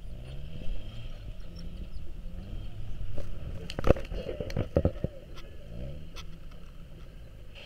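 Land Rover Ninety's engine revving in several rising pulls as it crawls over deep sandy ruts, with a cluster of loud knocks about four seconds in.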